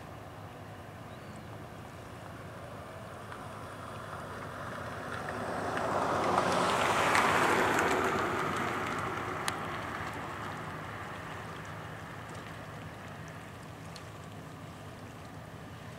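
A tugboat's Caterpillar diesel engines working hard, with a steady low drone under a rushing noise of engine and propeller wash. The rush swells to its loudest about seven seconds in, as the tug puts on power, and fades again by about twelve seconds.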